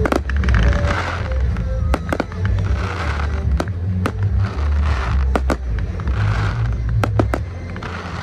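Fireworks exploding in a pyromusical: sharp bangs, sometimes several close together, with patches of crackling. Music with heavy bass plays underneath.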